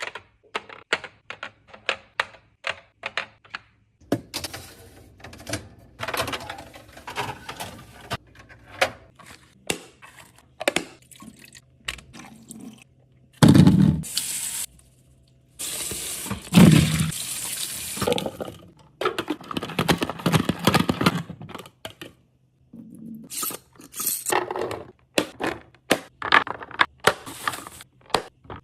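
Rapid light clicks and knocks of things being handled, with several stretches of running or pouring water.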